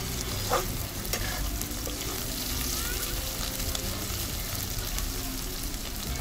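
Onion, green chillies and coriander leaves sizzling in hot mustard oil in a kadhai while a ladle stirs them. There are a few sharp knocks of the ladle on the pan in the first second or so.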